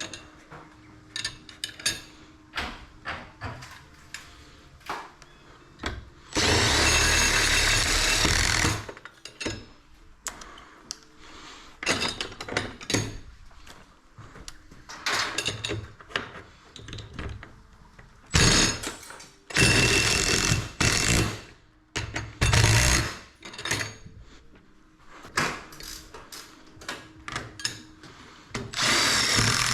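A power drill running in several short bursts, the longest about two seconds, as fasteners are driven during garage door installation. Scattered clicks and knocks of hardware being handled fall between the bursts.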